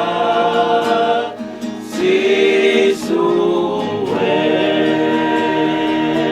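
Choir of voices singing a slow hymn in Tongan, holding long notes, with a short breath between phrases about a second and a half in.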